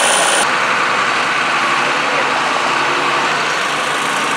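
Diesel garden tractor engines idling steadily before a pull, with no revving. A faint high whine cuts off about half a second in.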